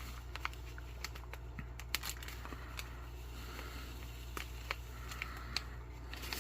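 Faint scattered clicks and light taps of small items being handled on a tabletop, over a steady low electrical hum.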